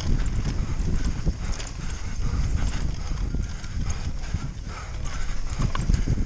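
Mountain bike knocking and rattling fast over rough, rocky ground, with a heavy low rumble throughout.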